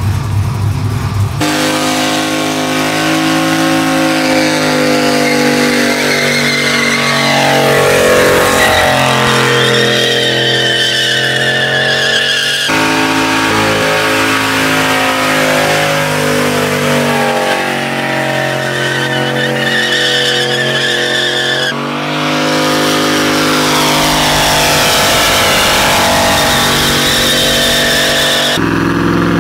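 Car engine held at high revs while the tires squeal in a burnout. The sound changes abruptly three times, as separate clips are cut together.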